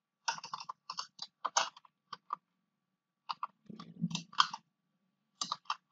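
Typing on a computer keyboard: short runs of keystrokes with two brief pauses between them.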